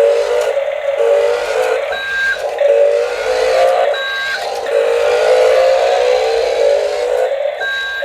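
Toy RC forklift's electronic sound effects from its small built-in speaker: a buzzy synthetic engine note that rises and falls in pitch, with three short high beeps.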